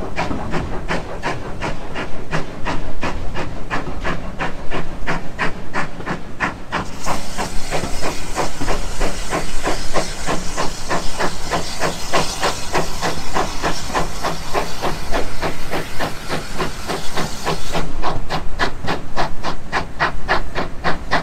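Steam locomotive working, its exhaust giving a rapid, even beat of chuffs. A hiss of steam joins in from about seven seconds in and cuts out after around ten seconds.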